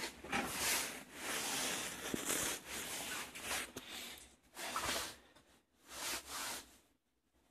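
Irregular rustling and rubbing noise in uneven patches, with a couple of faint clicks, typical of a phone being handled while it records; no engine is running.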